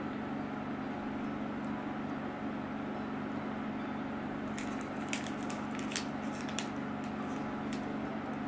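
Candy-bar wrapper crinkling as it is torn open, a run of sharp crackles from about halfway through, over a steady low hum.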